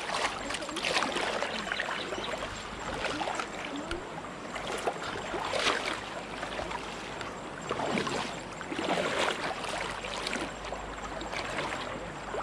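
Water sloshing and splashing around legs wading through a shallow, rocky river, coming in irregular surges every second or two over a steady rush of water.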